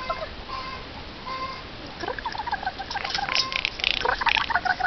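Eurasian jay calling in rapid runs of short notes, one about two seconds in and a longer one from about three seconds to the end, with a rougher, harsher patch near its start.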